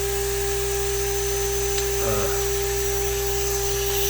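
2.2 kW water-cooled CNC spindle running free at full speed, 24,000 RPM, with no cut being made: a steady whine held at one pitch.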